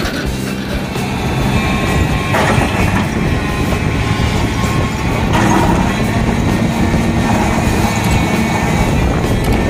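Hyundai crawler excavator's diesel engine running steadily under load while its bucket digs into a pile of crushed stone. Rocks grind and clatter against the steel bucket in three short bursts.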